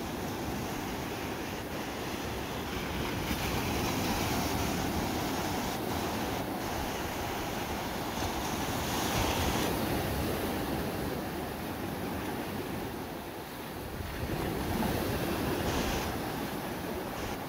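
Small Black Sea waves breaking and washing up a sandy beach. The surf swells louder and eases off as each wave comes in and spreads over the sand.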